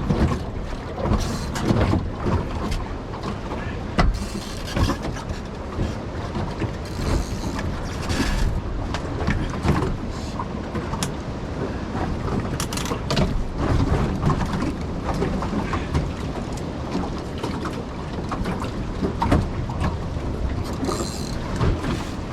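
Wind on the microphone and waves slapping a small boat's hull as it rocks in rough water, with scattered knocks and clicks throughout.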